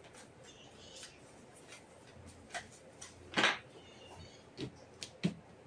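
A deck of Osho Zen tarot cards being shuffled by hand: scattered soft card clicks and taps, with one louder brief swish of cards sliding together about three and a half seconds in.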